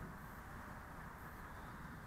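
Faint, steady outdoor background noise: an even hiss with an uneven low rumble on the microphone and no distinct event.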